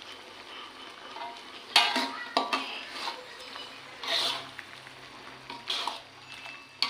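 Spatula scraping and knocking against a metal wok while squid is stir-fried in its ink sauce, over a faint steady sizzle. There are a handful of separate strokes, the loudest about two seconds in.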